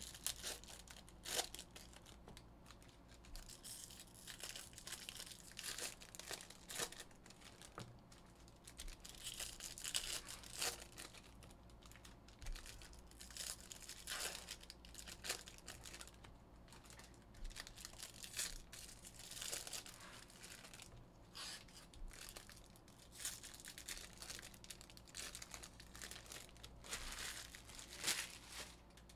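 Foil wrappers of Bowman Jumbo baseball card packs crinkling and tearing as they are ripped open by hand, in irregular crackly bursts.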